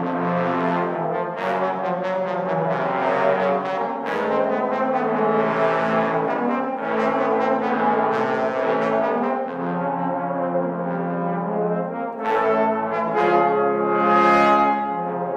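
Trombone choir of about ten trombones playing held chords in harmony, the chords changing every second or two, with a louder swell about twelve seconds in.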